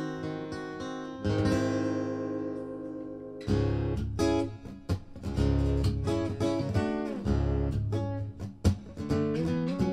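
Acoustic guitar playing an instrumental tune: sustained, ringing chords for the first few seconds, then a busier rhythmic passage of strummed and plucked notes from about three and a half seconds in.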